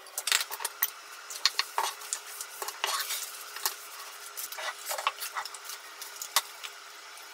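Wooden chopsticks stirring bread cubes in milk in a ceramic bowl: a quick, irregular run of light clicks and taps against the bowl, thinning to a few sparser knocks in the second half.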